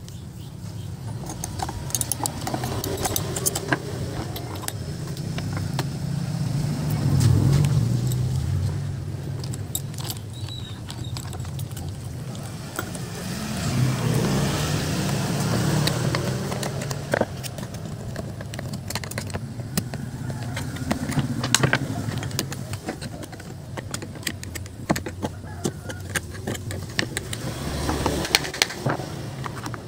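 Metal clinking and rattling as a saw chain and hand tools are handled, with motorbikes passing by, their engine noise swelling and fading about three times.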